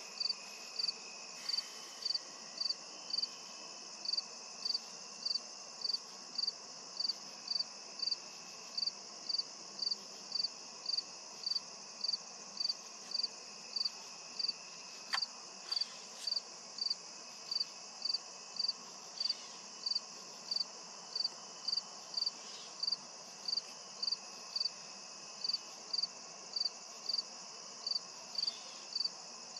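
Chirping insects: one short, high chirp repeated evenly about one and a half times a second over a steady, higher insect drone.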